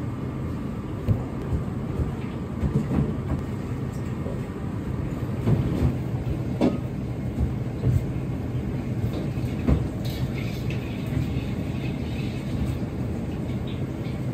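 Steady low rumble of a working kitchen's background machinery, with scattered light knocks and taps as cubes of firm tofu are lifted and pressed into a steel tray of potato starch. The sharpest knocks come about a third of the way in and again about two-thirds of the way through.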